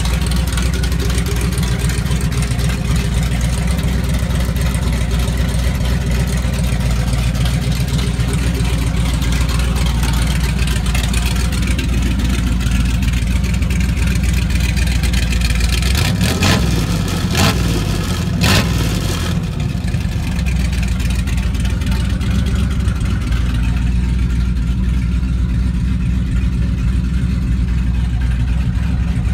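Chevrolet 502 cubic-inch big-block V8 in a 1969 C10 pickup idling steadily. A few sharp knocks sound over it about halfway through.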